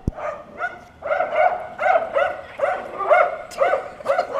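Dog barking excitedly in a quick string of short, high yips, about two or three a second, while chasing a remote-control car.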